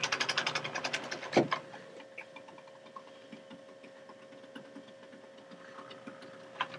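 HO-scale model train rolling along the track with a rapid, even clicking of wheels and mechanism, ending about a second and a half in with a single sharp clack as the cars close up and stop. After that only faint light ticks over a steady thin hum.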